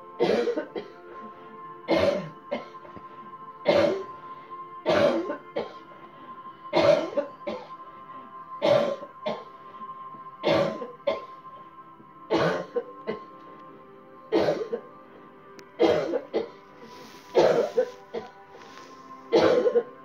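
A woman coughing hard again and again on purpose, about one cough every one to two seconds, many followed by a smaller second cough, as a deliberate chest-clearing coughing exercise. Faint background music with steady held notes underneath.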